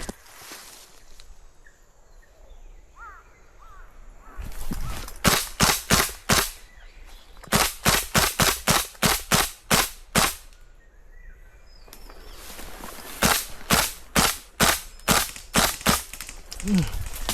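Airsoft guns firing in three quick strings of sharp shots, about two dozen in all, with short pauses between the strings.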